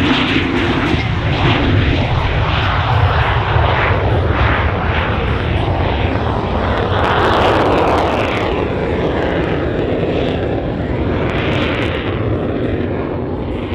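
Jet noise from a Lockheed U-2's single General Electric F118 turbofan as the aircraft climbs away after a low pass: a steady deep rumble under a rushing hiss with a slow wavering sweep. It swells around the middle and eases slightly near the end.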